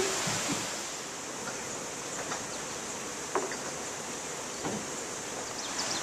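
Steady rush of running water, with a few faint knocks.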